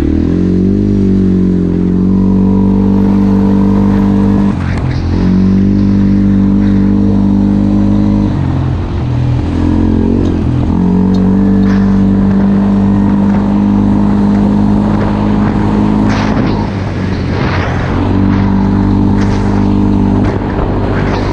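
CF Moto 450L ATV's single-cylinder four-stroke engine running while riding. Its note rises at the start, then holds steady, easing off and picking back up a few times as the throttle changes. A few knocks come around two-thirds of the way through.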